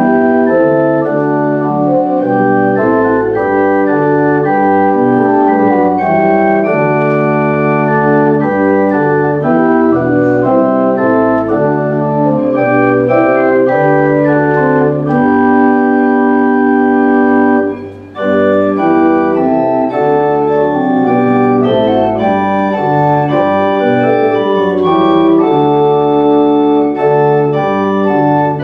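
Organ playing a hymn tune in held chords that change step by step, with a short break about eighteen seconds in between verses.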